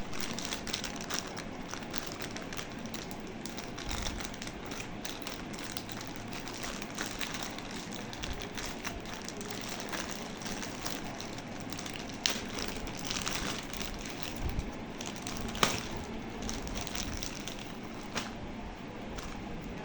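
Unboxing handling of a watch's packaging: crinkling and rustling with scattered clicks and taps, the sharpest click about three-quarters of the way through.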